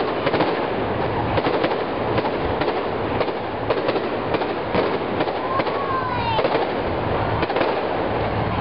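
Fireworks display: a continuous barrage of rapid crackling bangs and pops, with a brief whistling glide about six seconds in.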